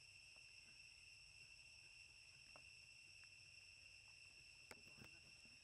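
Faint, steady insect drone: one high note held without a break. A couple of faint clicks come near the end.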